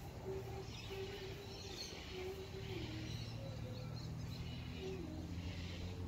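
Faint wild bird chirps and calls scattered through the morning air, over a low steady hum that swells slightly about halfway through.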